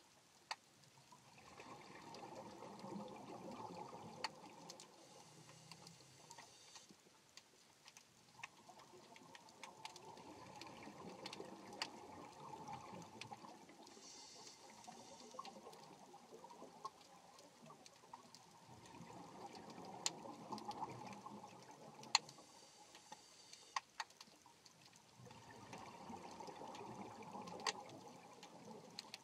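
Underwater ambience: a soft rushing of water that swells and fades four times, each swell lasting a few seconds, with scattered sharp clicks throughout.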